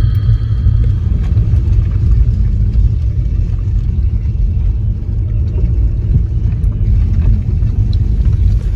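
Car driving slowly, a steady low rumble of engine and road noise.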